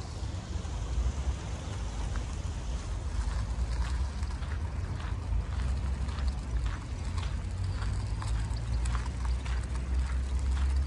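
Rhythmic clopping steps on hard pavement, about two a second, setting in a few seconds in, over a steady low rumble.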